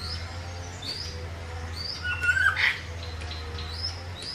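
African grey parrots calling: a string of short high chirps with a louder, lower squawking whistle about two seconds in, over a steady low hum.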